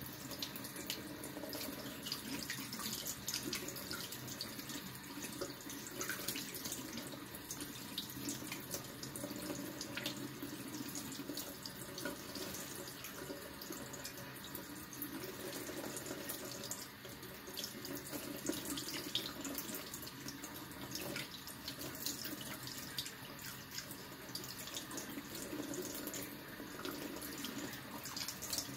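Kitchen tap running in a thin, steady stream, splashing off cupped hands and a bathing budgie into a stainless steel sink, with many small splatters.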